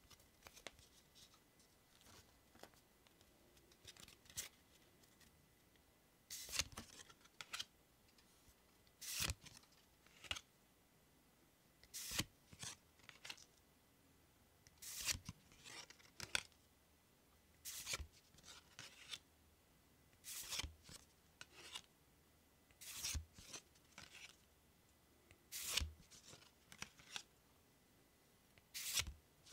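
Pokémon trading cards handled one at a time, each slid across the stack with a short, soft papery swish. The swish comes about every three seconds, with faint finger-on-card ticks between.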